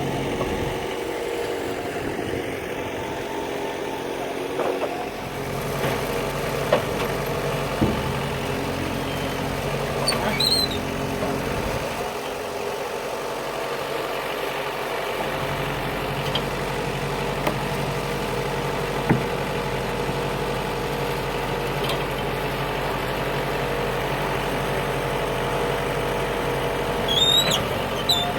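Engine of a Wood-Mizer portable bandsaw mill running steadily, with a few sharp knocks now and then.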